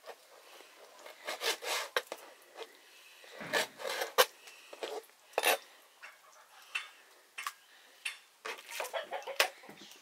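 Metal pots and utensils clattering in a kitchen: irregular knocks and scrapes, the sharpest a little after four seconds, with a hen clucking among them.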